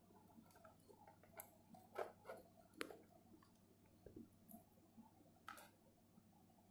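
Near silence broken by a few faint, scattered clicks and taps of wires and a soldering iron being handled against a circuit board while wires are soldered on.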